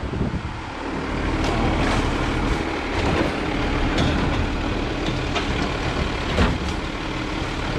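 Autocar Xpeditor side-loading garbage truck running steadily while its automated arm lifts and empties a cart, with clatter and a few sharp knocks from the arm and cart.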